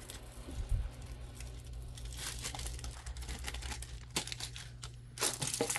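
Small plastic bag crinkling and rustling as it is handled, in irregular bursts that are busiest near the end.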